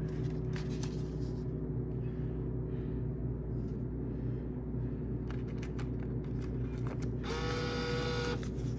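Steady low hum of a refrigerated drink vending machine's cooling unit, with a few light clicks. Near the end, a steady-pitched whine lasts about a second.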